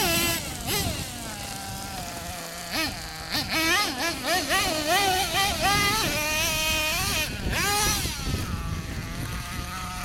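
Losi LST radio-controlled monster truck's motor revving up and down again and again as it is driven.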